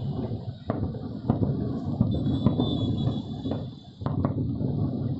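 Fireworks going off: a continuous low rumble of booms with several sharp cracks, the loudness dipping briefly near the end.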